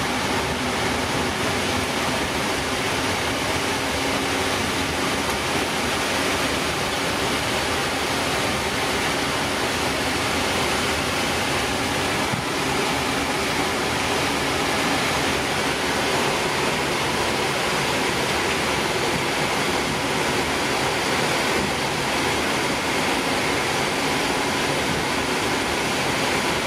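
Steady rushing cockpit noise of a Boeing 777-300ER taxiing, an even hiss from the aircraft's ventilation and engines at taxi power.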